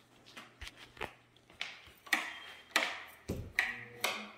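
Footsteps on a tile floor, about two steps a second, sharp taps that grow louder about a second in, each with a short echo off the bare walls of an empty room.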